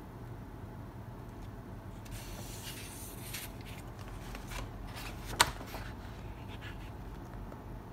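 Paper rustling as hands handle a loose glossy flyer and turn a large page of an artbook, with one sharp paper snap a little past halfway, over a steady low hum.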